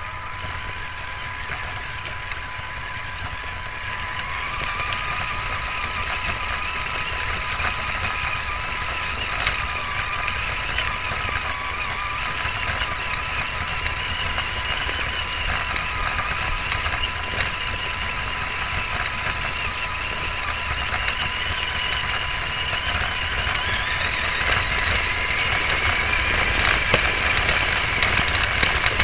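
Electric motor and gears of an RC car (Tamiya Wild Willy II) whining as it drives, the pitch rising and falling with speed and climbing higher near the end. Underneath is a low rumble of the chassis bouncing over rough, leaf-covered ground, picked up by the onboard camera.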